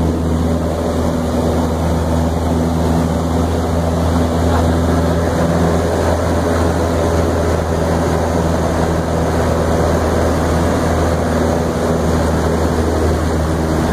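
Light single-engine airplane's piston engine and propeller running steadily in flight, heard from inside the cabin as a loud, even drone with a low hum.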